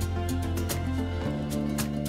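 Background music with a steady beat over held bass notes; the bass shifts to a new note about a second and a quarter in.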